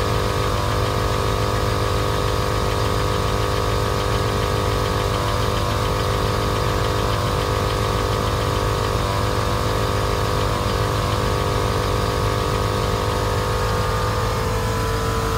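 Viair 450 12-volt air compressor running steadily together with the idling engine of a 1998 Chevy C1500 pickup, pumping up a converted fire-extinguisher air tank as its pressure climbs past about 120 psi.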